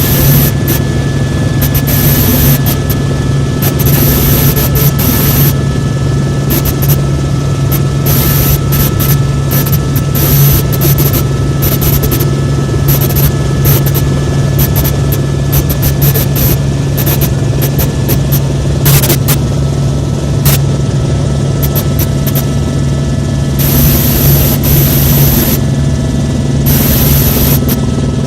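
Tour helicopter in flight, heard from on board: a loud, steady drone of turbine engine and rotor with a constant low hum, and a hiss in the highs that comes and goes.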